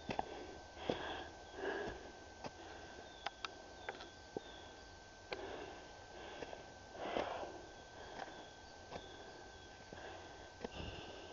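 Footsteps on a snowy, rocky forest trail: scattered short crunches and knocks. A few loud breaths from the walker come about one, two and seven seconds in.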